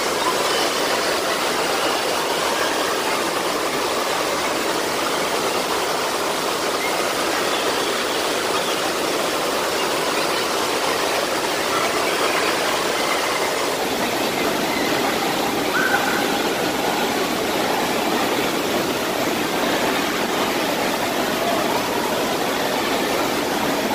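Water rushing steadily out of a big tube raft slide and churning into its splash-down pool.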